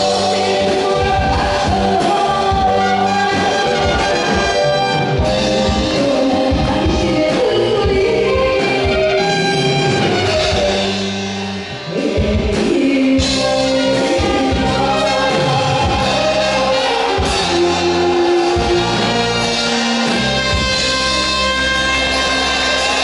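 A woman singing a Korean trot song into a microphone, backed by a live band with trumpet, trombone and drums. The band drops back briefly about twelve seconds in.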